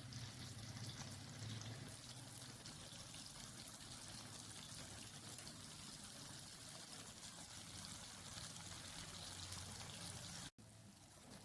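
Lamb sizzling on a hot plate: a steady crackling hiss. It cuts out briefly near the end and comes back a little quieter.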